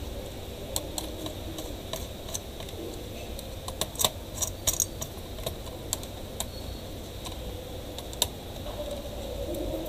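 Scattered small clicks and taps of a screwdriver and metal parts as a laptop heatsink is fitted and screwed back onto the motherboard, busiest about four to five seconds in, over a low steady hum.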